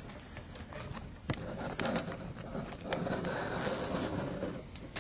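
Handling noise from a laptop screen panel being stood up and moved: a few light clicks and a soft rustle of plastic.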